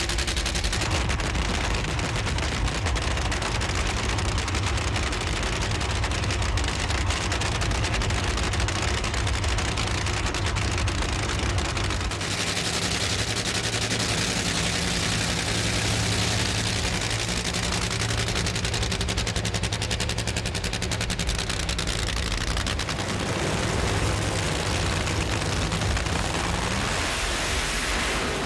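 Nitromethane-burning Funny Car engine running with a rapid, rattling crackle like machine-gun fire. The sound shifts about twelve seconds in and again near the end.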